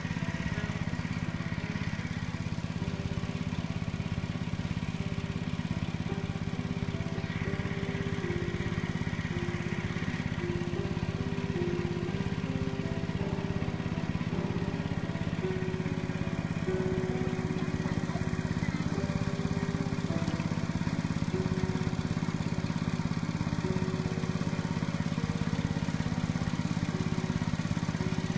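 Background music: a slow melody of held notes over a steady low drone.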